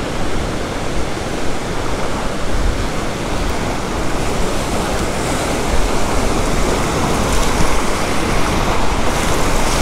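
Ocean surf: waves breaking and washing in over shallow water, a steady rushing noise.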